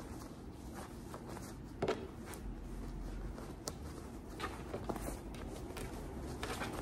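Handling noise from folding a satin jacket and its packaging on a table: soft rustling and scattered light taps, with one louder thump about two seconds in.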